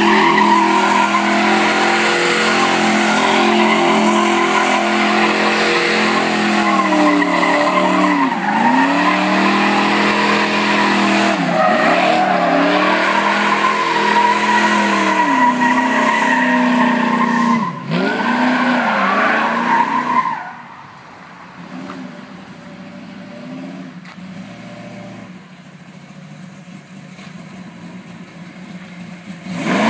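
1970 Chevy Nova SS's 393 stroker V8 held at high revs while the rear tires spin and squeal through donuts, the revs dipping and climbing again several times. About twenty seconds in the engine falls back and runs much quieter, then revs up again at the very end.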